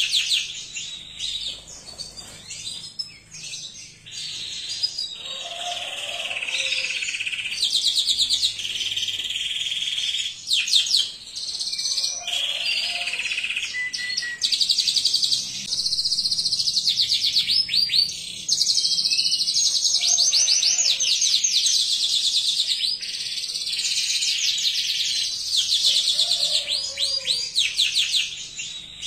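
Domestic canary singing a long, nearly unbroken song of fast trills and rolls, with a few short breaks.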